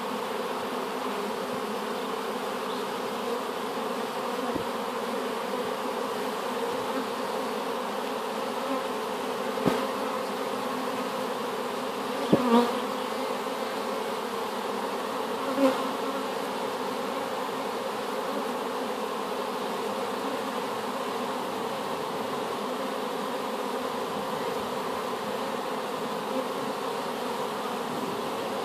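Steady hum of many honeybees at the hive entrance, a swarm newly housed in the hive. Three times, near the middle, a single bee buzzes loudly as it flies close past.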